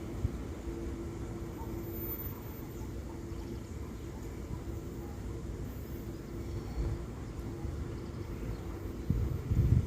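Diesel-electric freight locomotive engines working hard up a steep grade, heard as a steady low drone with an on-and-off hum. The rumble surges louder near the end.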